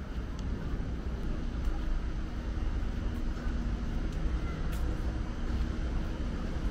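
Steady low rumble of city traffic with a faint engine hum.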